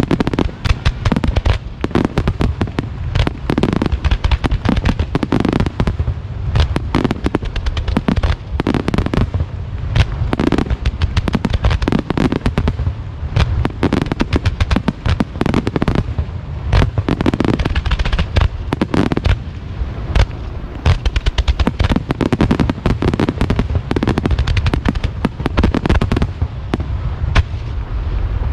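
A fireworks starmine barrage: an unbroken, rapid string of booms and crackling bursts from many shells fired at once.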